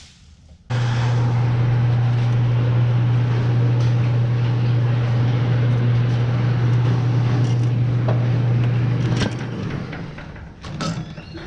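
A loud motor-driven machine starts suddenly and runs steadily with a deep hum and a rushing noise over it, then cuts off after about eight seconds.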